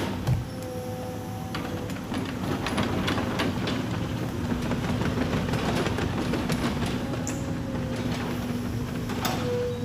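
Hydraulic excavator running under load, its engine droning with a steady hydraulic whine. A sharp click comes right at the start, a run of knocks and clatter follows about two to four seconds in, and another click comes near the end, as the machine works the logs.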